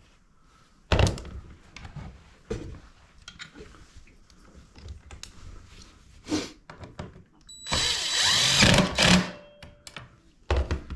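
Cordless drill-driver running in one burst of about a second and a half, about eight seconds in, with a steady high motor whine, driving a screw in a chainsaw's upper anti-vibration suspension. Before it come a few sharp knocks and light clatter of the tool and saw being handled.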